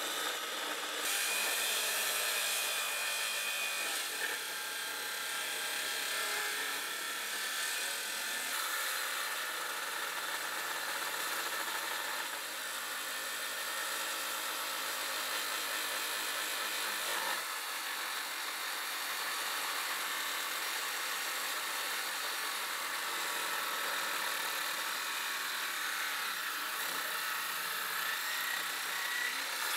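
Wood being worked by hand, a steady sawing and rubbing noise that changes abruptly a few times.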